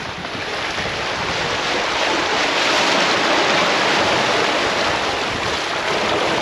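Water rushing and splashing along a sailing catamaran's hull as it moves under sail, with wind buffeting the microphone. A steady rush that grows louder about two seconds in.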